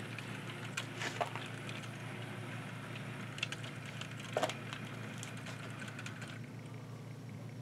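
HO-scale model freight train rolling slowly along its track, its wheels giving a few irregular light clicks over rail joints above a steady low hum.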